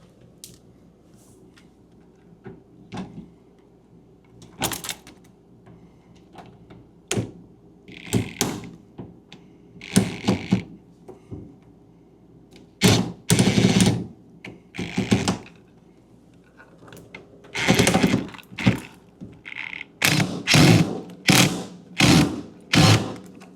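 Thunks, knocks and scraping as a refrigerator door and its hinge are handled and fastened, with a run of about five short knocks near the end, over a faint steady hum.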